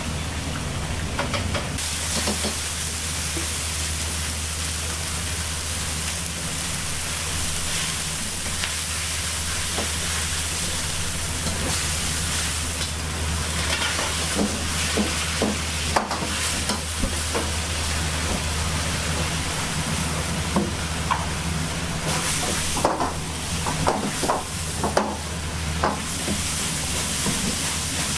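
Food sizzling in hot oil on a commercial wok range, over a steady low roar from the gas burners and hood. In the second half a metal ladle clanks and scrapes against the wok again and again as the food is stir-fried.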